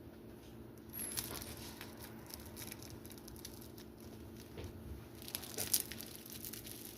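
Crisp toast crunching in crackly bursts, a short burst about a second in and a louder one near the end.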